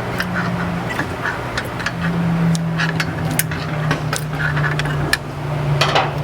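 Metal tools clinking and knocking while a car's brake assembly is worked on, a string of short irregular clicks over a steady low mechanical hum.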